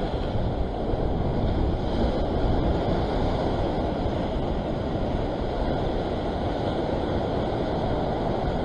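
Rough surf washing and churning against a rock ledge, a steady rushing sound, with wind buffeting the microphone.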